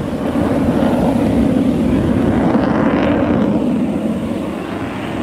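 F-22 Raptor's twin Pratt & Whitney F119 turbofan jet engines, a loud steady rumble from the passing jet that eases off slightly near the end.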